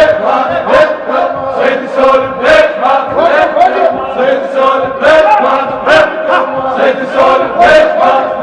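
Men chanting a melodic refrain, with sharp percussive beats keeping time about twice a second.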